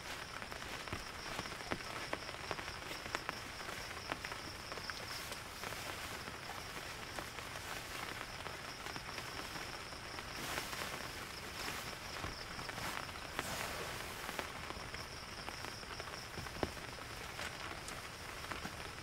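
Steady rain with many separate drops tapping, over a continuous high, rapidly pulsing animal call. The rain grows heavier for a few seconds around the middle.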